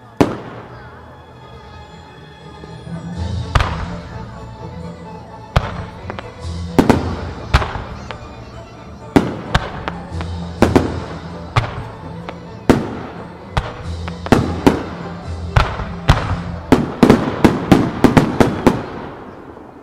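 Aerial firework shells bursting in a starmine sequence, one sharp bang after another every second or two, then a rapid volley of bangs close together near the end. Music plays steadily underneath.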